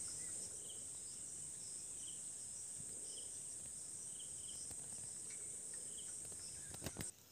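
Steady, high-pitched drone of crickets or similar insects, with a few short chirps about a second apart, cutting off abruptly near the end.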